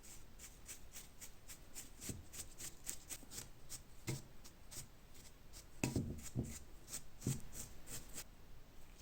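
Old rusty padlock being handled: a quick run of light metallic clicks and taps with a few heavier knocks, stopping shortly before the end.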